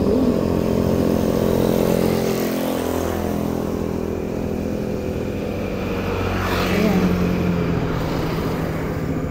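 Motorcycle engine running under way with wind and road noise, its pitch falling about two to three seconds in as it eases off. A brief louder swell of noise comes about six and a half seconds in.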